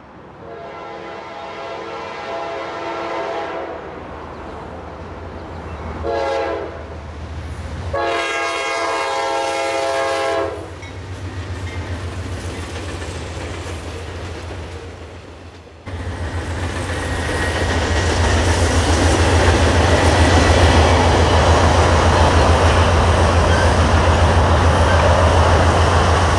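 Diesel locomotive air horn blowing the grade-crossing signal: long, long, short, long. Then the train's passenger cars roll past with a steady rumble of wheels on rail. After a sudden change, a louder, even low rumble runs on as the train keeps moving.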